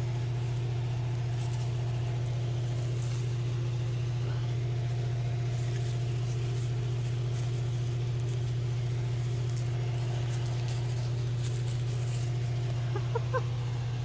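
Steady, loud low hum of a greenhouse ventilation fan running without change.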